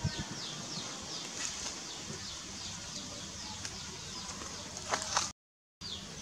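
Birds chirping in the background: a steady, rapid series of high, descending chirps, several a second. A couple of faint clicks, and the sound cuts out completely for about half a second near the end.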